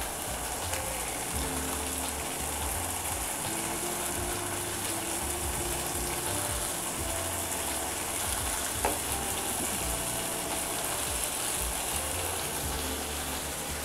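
Thick korma masala sizzling and bubbling in a frying pan as pieces of katla fish are laid into it, with one short knock about nine seconds in. Quiet background music plays underneath.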